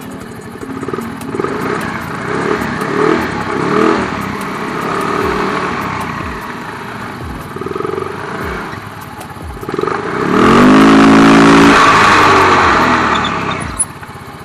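Yamaha Mio scooter's single-cylinder four-stroke engine running with the CVT cover off, the newly fitted 4S1M driveface, belt and clutch spinning. The throttle is blipped several times, then held high for about three seconds before it drops back. This is a test run to check whether the new pulley set makes noise.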